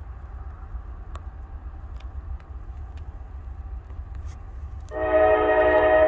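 The air horn of Norfolk Southern locomotive 9694, heading an approaching train, starts a long blast about five seconds in: a loud, steady chord of several tones that is still sounding at the end. Before it there is only a low, steady rumble.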